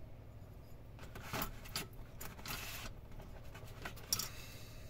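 Steel folding knives with stag-horn handles and brass bolsters clinking and scraping against one another as they are handled and laid down on a table: a few light clicks, a longer scrape about halfway through, and a sharp click near the end.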